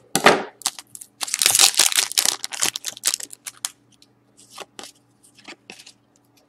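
A sealed hockey card pack wrapper being torn open: a quick run of loud ripping and crinkling, then softer rustles and slides as the cards come out.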